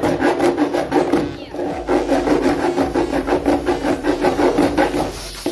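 A metal cutter blade sawing back and forth across the neck of a metal aerosol snow spray can, a fast rasping scrape at about five strokes a second, with a short pause about one and a half seconds in.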